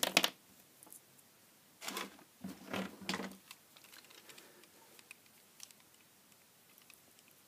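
Handling noise on a desk: a sharp knock right at the start, a couple of short clattering sounds about two to three seconds in, then faint scattered ticks. The sounds come from a small circuit board and a plastic pocket microscope being picked up and handled.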